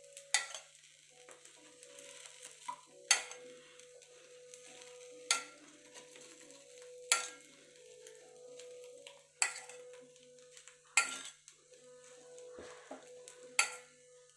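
Metal utensil knocking sharply against cookware about seven times, roughly every two seconds, over a faint sizzle of bread frying in egg on the pan.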